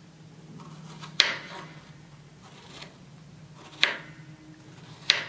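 A kitchen knife cutting through a strawberry and tapping down on a wooden cutting board: three sharp taps a second or more apart, over a faint steady hum.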